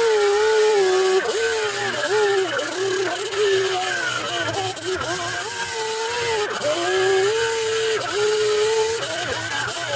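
Handheld electric power tool, such as a sander, running on a fibreglass keel patch, its motor whine sagging in pitch and recovering every second or two as it is pressed into the work.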